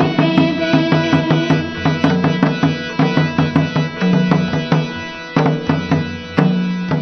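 Live Santhali folk dance music: a harmonium holding sustained notes over a quick, steady beat on hand drums.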